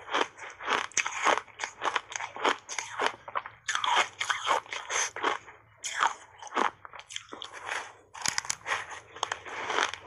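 Frozen block ice coated in matcha powder being bitten and chewed, crunching and cracking in quick dense runs as the ice breaks between the teeth, with a short lull past the middle.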